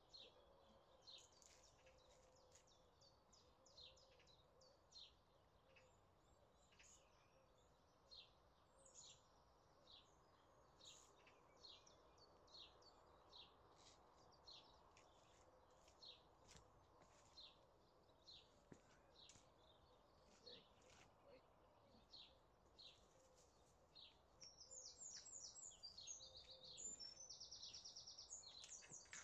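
Faint birdsong: many short chirps and calls from several birds, with a louder, fast trill of rapidly repeated notes for about four seconds near the end.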